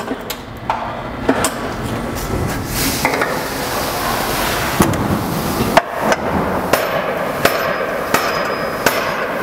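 Hammer striking a car's steel frame rail while it is held under pull by a frame-straightening tower's chain, to relieve stress in the metal: about a dozen sharp knocks at uneven intervals, roughly one to two a second, over a steady hiss.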